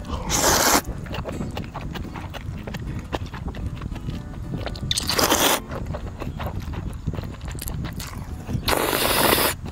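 Three loud slurps of cold noodles, each under a second, about four seconds apart, with small clicks and chewing sounds between.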